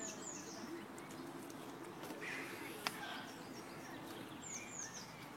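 Birds chirping, a few short high calls that sweep downward, near the start and again near the end, over a steady background hiss. A single sharp click sounds about three seconds in.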